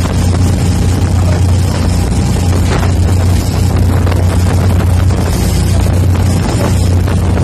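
Motorboat engine running steadily at cruising speed, a constant low drone under the rush of wind and churning water from the wake.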